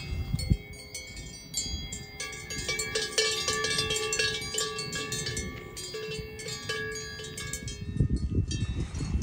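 Several cowbells on grazing cattle, clanking irregularly with overlapping ringing tones; a low rumbling noise rises near the end.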